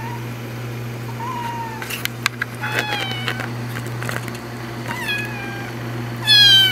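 Tabby Scottish Fold kitten meowing: about four short, high mews, each falling in pitch, the last and loudest near the end. A steady low hum runs underneath.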